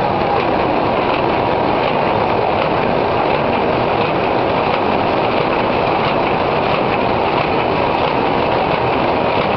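Automatic square-bottom paper bag making machine running at about 100 bags a minute: a loud, steady, dense mechanical noise.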